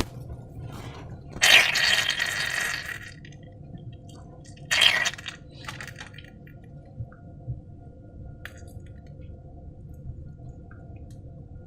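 Wet slime squelching and splashing in two bursts: one about a second and a half long near the start, and a short one about five seconds in, over a faint steady low hum.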